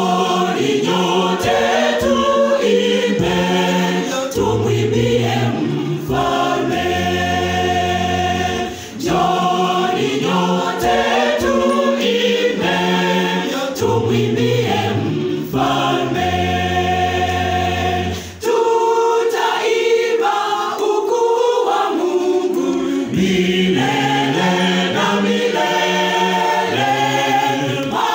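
A large mixed church choir, women and men, singing a gospel song in harmony, with deep bass notes held under the higher voices. The singing comes in full right at the start and goes on in long phrases with two brief breaths between them.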